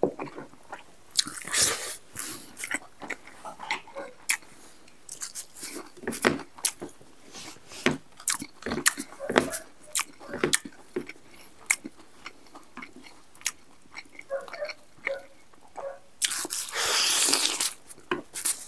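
A man chewing a mouthful of spicy buffalo meat and rice eaten by hand, with many short wet clicks and smacks of the mouth. Near the end comes a loud breathy hiss lasting about two seconds.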